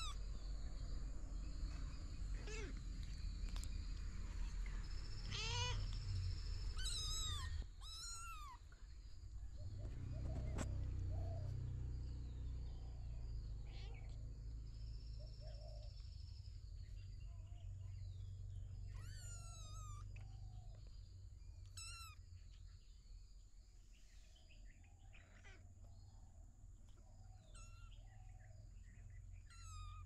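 Small kittens mewing: about ten short, high-pitched mews, bunched in the first nine seconds and again in the second half, with a lull in between.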